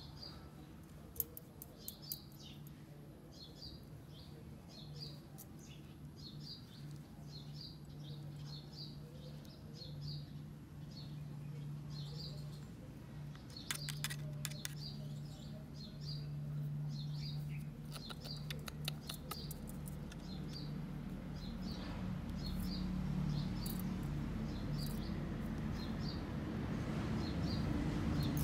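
A small bird chirping over and over in short high chirps, with a steady low hum beneath. A few sharp clicks come in between, and a low rumbling grows louder near the end.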